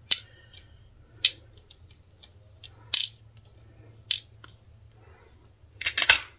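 Small stone beads clicking as they are handled and dropped, four sharp single clicks a second or so apart, then a short crinkly rustle of the clear plastic bead packet near the end.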